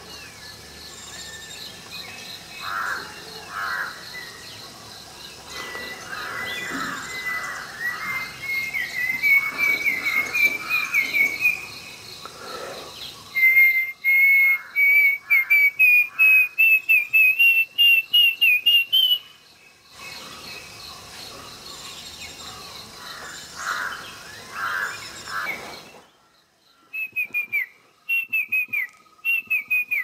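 A banded bay cuckoo's song traded with a person's whistled imitation of it: two long series of clear whistled notes that climb steadily in pitch, the second louder. Near the end come a few short down-slurred whistles. Crickets chirr steadily throughout.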